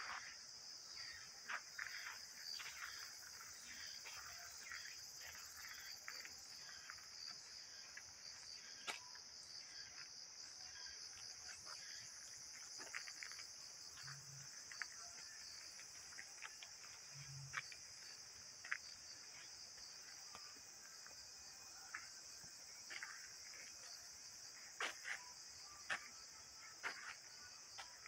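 Faint, steady high-pitched chorus of insects in the forest, with scattered soft clicks of footsteps on a dirt path.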